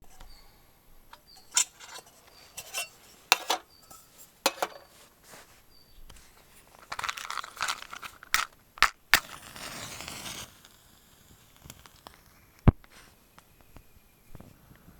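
Small objects being handled: a string of scattered clicks and clinks, a stretch of crinkling about seven seconds in, and one sharp knock near the end.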